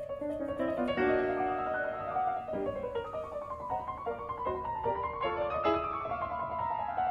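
Background piano music: a melody of single notes stepping down and back up over held lower notes.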